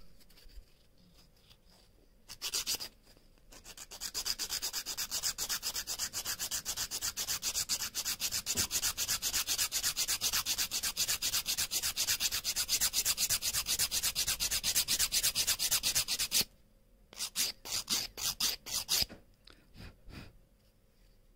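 Nail file filing a cured polygel nail extension in fast back-and-forth strokes, taking off the excess length and shaping the sides. A brief burst of strokes comes first, then a long run of rapid, even filing, and a few separate strokes near the end.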